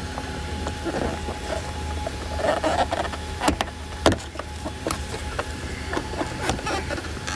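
Scattered plastic clicks and knocks from a 2016 Toyota Camry's ceiling grab handle and its trim clips being worked loose with a hand tool, the sharpest two knocks about three and a half and four seconds in, over a steady low hum.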